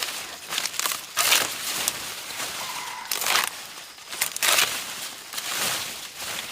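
Irregular rustling and crinkling noises in short bursts, roughly one a second.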